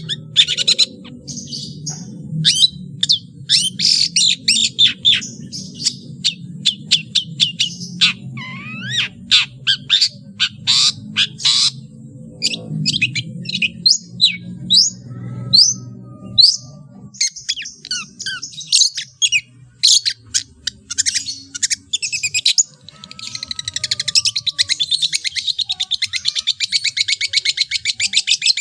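Long-tailed shrike (cendet) singing a rapid, varied song of sharp chirps and downward-sliding whistles, packed with mimicked calls of other birds. Near the end it runs into a fast, steady trill.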